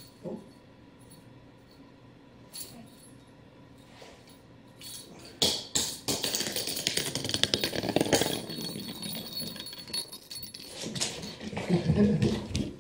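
A cat scampering on a hardwood floor, its paws pattering and skittering in a rapid clatter that starts about five seconds in after a quiet stretch.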